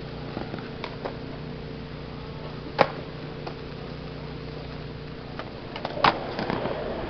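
Skateboard clacking on concrete: two sharp, loud cracks of a board hitting the ground, one a little before halfway and one near the end, the second followed by a short rough rattle, over a steady low hum and a few lighter taps.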